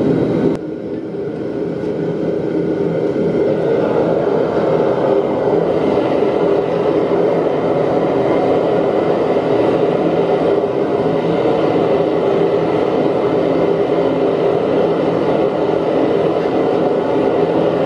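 Homemade gas-fired blast furnace burner running steadily at about 18 psi, a loud, even roar with a low hum under it. It dips briefly just after the start and builds back up over a few seconds.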